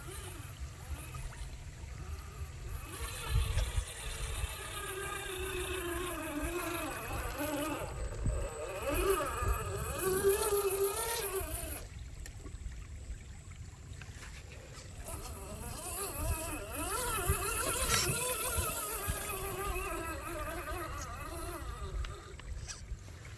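RC car's motor whining, its pitch wavering up and down with the throttle, in two runs with a pause of about three seconds between them.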